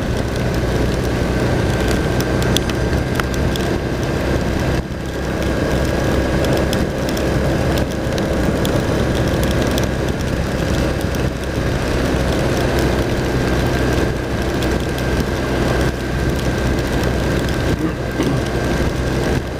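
BMW R1200 RT-P's flat-twin engine running at a steady road speed under loud wind and heavy-rain noise, with a scattered crackle of raindrops striking the microphone. The level dips briefly twice, about five seconds in and near the end.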